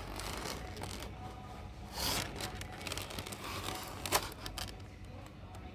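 Handling noise: a brief rustle or scrape about two seconds in and a sharp click just after four seconds, over a low steady hum.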